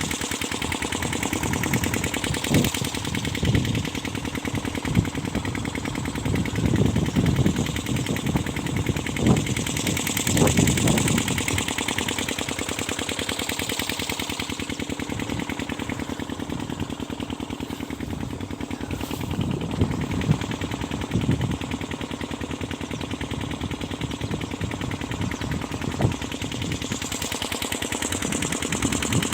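Irrigation pump engine running steadily with a fast, even chugging, with irregular low rumbles rising and falling over it.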